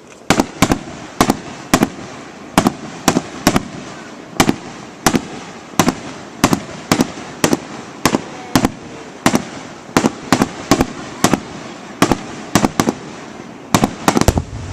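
Fireworks display: aerial shells bursting in quick succession, about two or three sharp bangs a second, with a continuous rumble and crackle between them.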